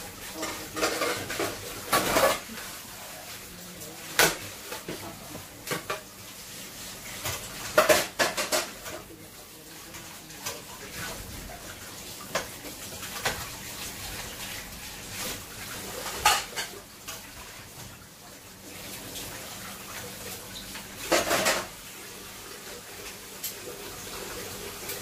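Utensil clinking and scraping against a stainless steel cooking pot as food is stirred: scattered separate clinks every few seconds, with the loudest clusters about 8 and 21 seconds in.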